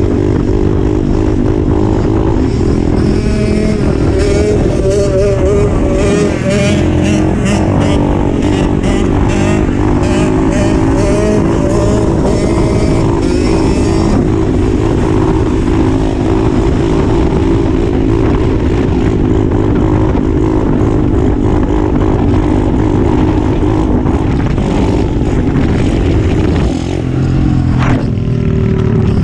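Dirt bike engines running hard and revving, the pitch rising and falling with the throttle.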